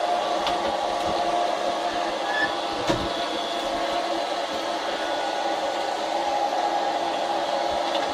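Panda X500 Pet Series robot vacuum cleaner running, its suction fan giving a steady whir with a few steady tones in it. There is a single knock about three seconds in.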